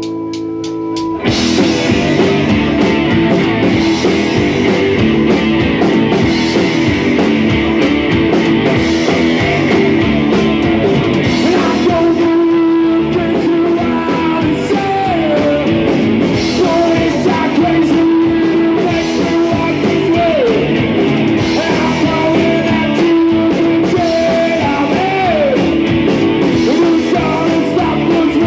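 Live rock band playing loud with electric guitars and a drum kit: after a single held guitar chord, the full band comes in together about a second in and keeps up a driving instrumental section.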